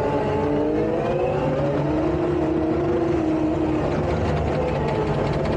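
Takeuchi tracked skid steer's diesel engine running steadily under load, its pitch drifting gently up and down as the machine works.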